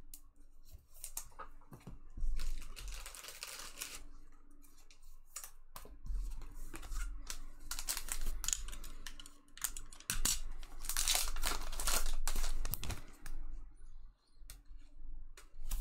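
A foil trading-card pack wrapper being torn open and crinkled by hand, in several bursts of rustling, the loudest about two-thirds of the way through.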